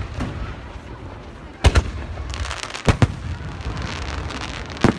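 Aerial firework shells bursting: three loud bangs about a second or two apart, with a stretch of crackling from crackle stars between them.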